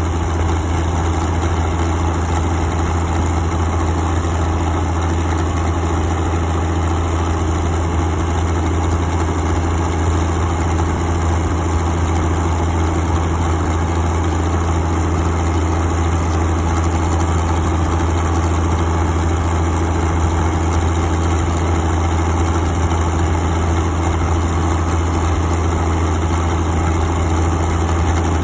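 Minneapolis-Moline GBD tractor's six-cylinder diesel engine running steadily with a deep, even drone as the tractor drives along, heard from the operator's seat.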